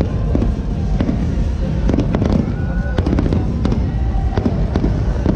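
Aerial fireworks bursting overhead: a rapid series of sharp bangs and crackles, several a second, over a continuous low rumble.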